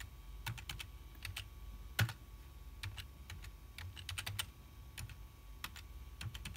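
Computer keyboard typing: scattered, irregular keystrokes, one louder than the rest about two seconds in.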